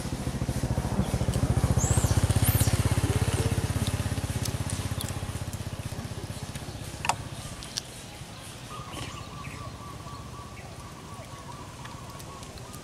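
A small engine passing, loudest about two seconds in and fading away over the next few seconds, with a few short bird chirps above it.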